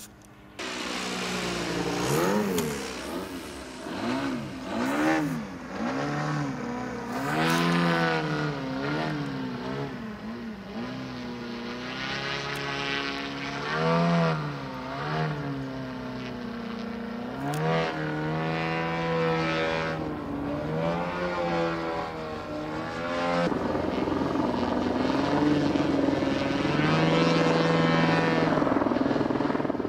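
Four-cylinder petrol engine and propeller of a large-scale Extra 300 LX model aerobatic plane in flight. Its note rises and falls again and again as it is throttled through manoeuvres, cutting in abruptly about half a second in and holding steadier and louder near the end.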